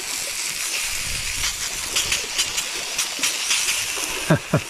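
A bone-in steak sizzling in a small cast iron pan over a wood fire: a steady hiss with frequent small crackles and pops of fat. Near the end come two short, loud sounds that slide downward in pitch.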